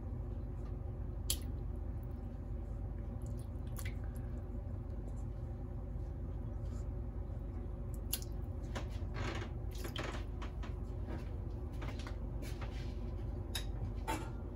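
Chunks of boiled beef being laid and pressed by hand into broth in a wok, with wet handling and splashing of the liquid about nine to ten seconds in and a few light knocks, over a steady low hum.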